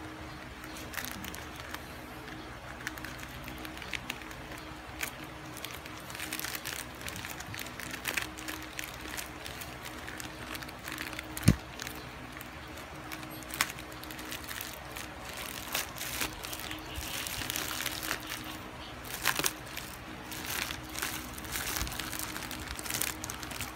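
Plastic courier mailer bag crinkling and rustling as it is handled and opened, with scattered small clicks and one sharp click about eleven seconds in. The rustling of plastic wrap grows denser near the end as the wrapped item is pulled out.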